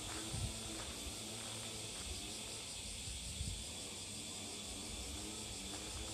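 Outdoor ambience: a steady, high insect hiss over a low rumble, with a few soft thumps.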